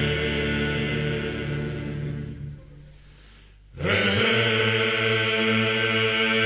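Background music of long, held tones. It fades out about halfway through, and a new held passage comes in suddenly about a second later.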